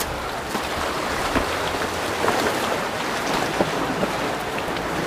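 Steady rushing outdoor noise of wind and sea waves on a rocky shoreline, with scattered small clicks and crunches of footsteps on the rocks.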